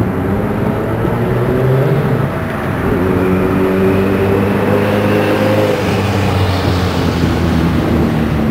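A large engine running steadily, its pitch shifting several times, with a hissing brightening about two-thirds of the way through.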